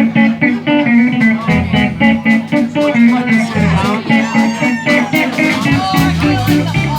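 Live blues band playing an instrumental passage led by guitar, with quick repeated notes. A heavy bass line comes in about six seconds in.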